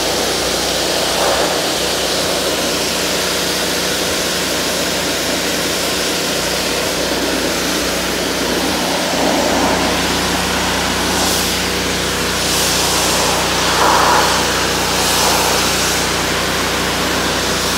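Pressure washer running steadily, its water jet hissing onto a soaked carpet over a low, even motor hum. The spray noise swells a few times in the second half as the wand moves across the carpet.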